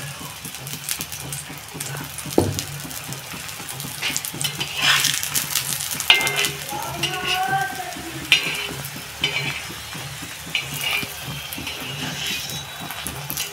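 Oil sizzling under a stuffed potato puri frying on a tawa. A metal spatula scrapes and clicks against the griddle several times as the puri is pressed and flipped.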